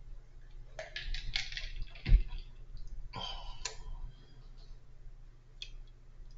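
A run of small clicks and knocks, with one sharp low thump about two seconds in and a short hissy rush a second later.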